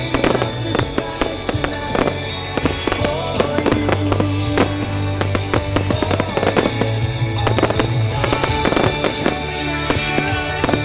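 A fireworks display going off in rapid, irregular bangs and crackles over loud music from the show's soundtrack.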